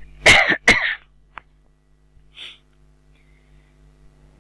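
Two short, explosive bursts of a man's breath in quick succession, like a sneeze, then a single click about a second later. A faint steady hum lies underneath.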